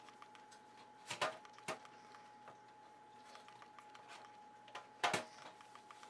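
Handling noise of a window squeegee and its microfiber pad as the pad is folded over and pressed onto the squeegee's Velcro strip: a couple of short knocks and rustles about a second in, another just before two seconds, and the loudest near five seconds in, over a faint steady hum.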